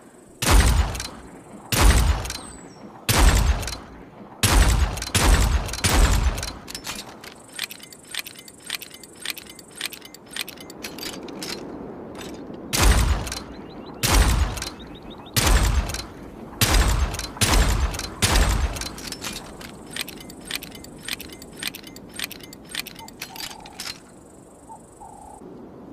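.38 revolver shots: a string of loud gunshots in the first several seconds, a pause, then a second string of about the same number, with many fainter sharp clicks and cracks scattered between and after them.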